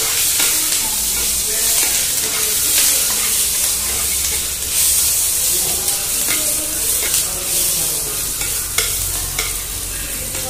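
Curry leaves, dried red chillies, bay leaves and cumin sizzling in hot oil in a nonstick frying pan as a spatula stirs them: a tempering (phutana) being fried. A few sharp clicks of the spatula near the end.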